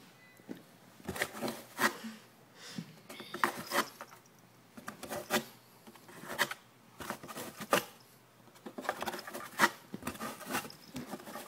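A cat scratching and pawing at corrugated cardboard, a string of short scratchy rubs at irregular intervals with brief pauses between them.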